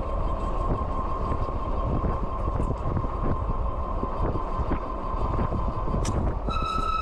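Wind and tyre rumble from an electric fat-tyre bike riding at about 24 mph on throttle, with the steady whine of its 750 W electric motor. Near the end a hydraulic disc brake squeals with a steady high tone, which the owner puts down to oil on the brakes.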